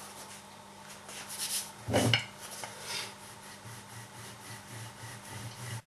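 Dough being pressed and rolled out on a floured wooden tabletop: soft, even rubbing with a knock about two seconds in. The sound cuts off suddenly near the end.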